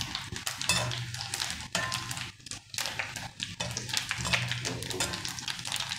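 Tempering spices (dried red chillies, mustard seeds, urad dal and cumin) frying in hot oil in a kadai, crackling and sizzling as the seeds splutter, with a spoon stirring and scraping against the pan at times.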